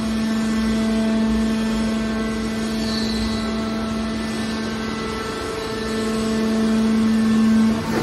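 The hydraulic power unit of a scrap steel wire baler runs with a steady hum while the compressed wire bale is pushed out. The hum grows louder over the last two seconds and drops away just before the end.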